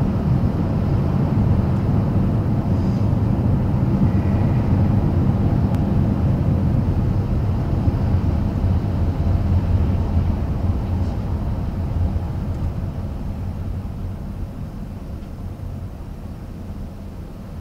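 Steady low road and engine rumble inside a moving Toyota RAV4's cabin. It grows gradually quieter over the last few seconds.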